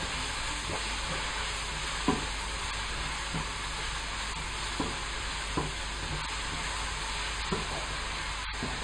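Vegetables sizzling as they fry in a stainless steel pan, stirred with a wooden spoon that scrapes and knocks against the pan about six times.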